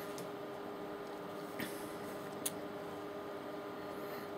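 Quiet room tone: a steady electrical hum, with two faint clicks about one and a half and two and a half seconds in.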